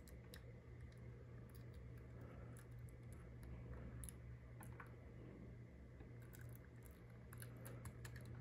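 Near silence: a low steady hum, with faint scattered ticks of metal tweezers handling tiny button flex parts.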